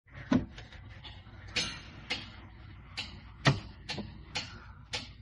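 A series of sharp taps, about two a second and unevenly spaced.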